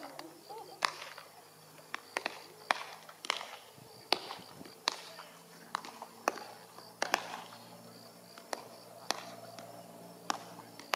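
Baseballs smacking into leather gloves during a game of catch: sharp pops, about one every half second to second.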